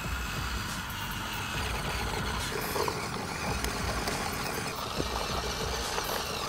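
Small motor of a model power tiller running steadily as it hauls a trailer of stones.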